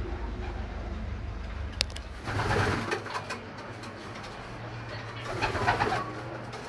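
Racing pigeons cooing, with two louder spells, one about two and a half seconds in and one near the end, over a steady low hum.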